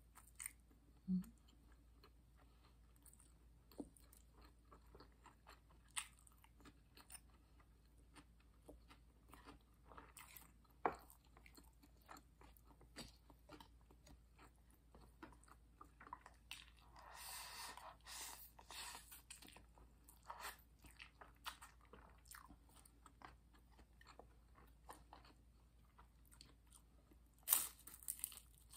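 Faint close-up eating sounds: chewing and crunching of a fried spring roll and instant noodles, with scattered mouth clicks and smacks. A louder smack comes near the end.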